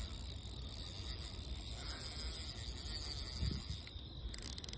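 Steady low outdoor rumble with faint high insect chirring. A quick run of small clicks near the end.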